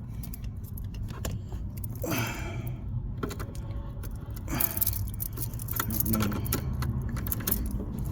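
Keys jangling and metal clicking as a replacement ignition lock cylinder for a 2005 Dodge Durango is pushed into the steering-column housing, with scraping rattles about two and five seconds in. A low steady rumble runs underneath.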